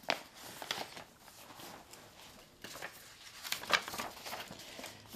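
Sheet of paper rustling and crackling as it is pulled out and unfolded by hand, in a series of short crinkles and clicks, loudest about three and a half seconds in.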